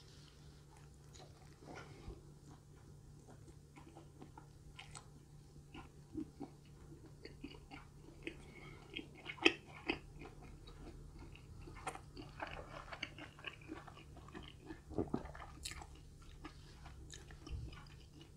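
Close-up mouth sounds of a person biting and chewing a slice of Domino's pepperoni pizza with cheddar cheese crust: soft, wet chewing with light crunches and scattered sharp clicks. The sharpest click comes about nine and a half seconds in.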